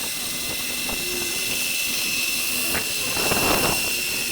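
Sanding machine running steadily with a constant high whine, with a short rush of noise about three seconds in.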